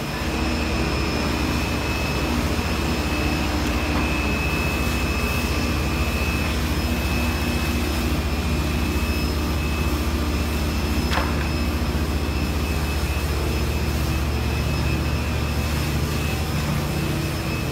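A large engine running steadily: a low hum with a thin high whine and a rushing noise over it. One brief click comes about two-thirds of the way through.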